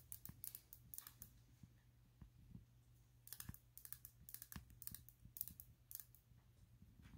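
Near silence: scattered faint light clicks and small scratchy taps in two loose clusters, over a low steady hum.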